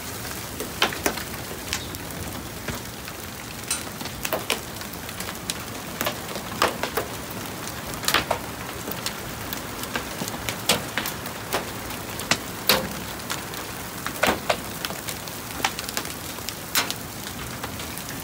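Hailstorm: a steady hiss of hail coming down, broken by irregular sharp cracks of single hailstones striking hard surfaces close by, one to a few a second.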